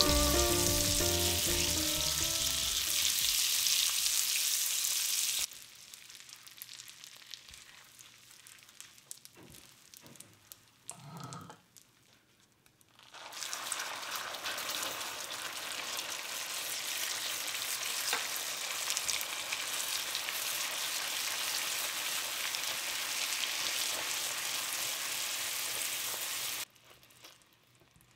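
Butter sizzling as it melts into hot caramelized sugar in a pan, stirred with a silicone spatula; the sizzle drops off about five seconds in, leaving quieter stirring. Around thirteen seconds in a loud, steady sizzle returns as whipping cream is poured into the hot caramel and it bubbles up, cutting off suddenly near the end.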